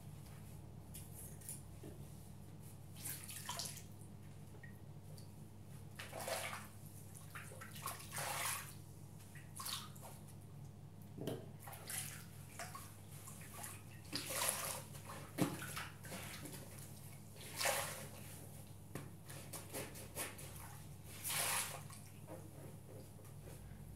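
Soap-lathered bath sponges squeezed and worked by hand in a sink of water: irregular wet squelches and sloshes every second or two, over a steady low hum.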